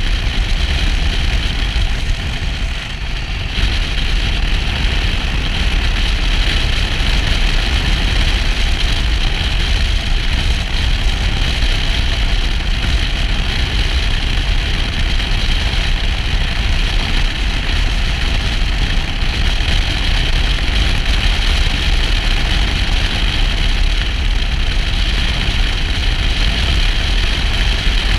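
Motorcycle riding at road speed, about 55–70 km/h: the engine runs steadily under a constant rush of wind noise on the microphone.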